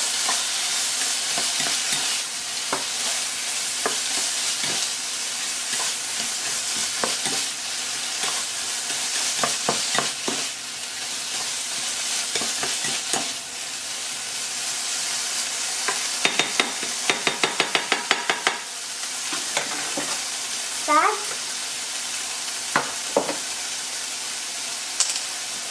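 Diced eggplant and tomato sizzling in a hot frying pan while a spatula stirs and scrapes them, with scattered clicks of the utensil against the pan. About two-thirds of the way in comes a quick run of rapid taps.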